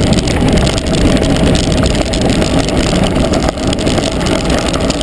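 Mountain bike rolling fast downhill on a loose gravel track: tyres rumbling over stones and the bike rattling with many small knocks, under heavy wind rush on the microphone.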